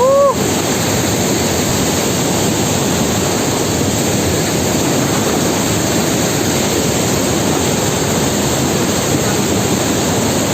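Waterfall swollen with monsoon rain: a loud, steady rush of falling water. A brief rising-then-falling vocal sound comes right at the start.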